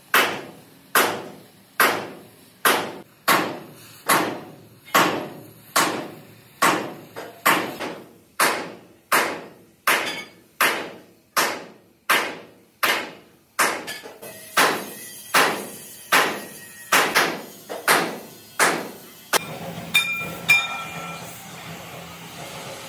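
Hammer blows on steel plate in a steady rhythm, about one ringing strike every 0.8 seconds. In the last few seconds the strikes thin out and a steady hiss rises beneath them.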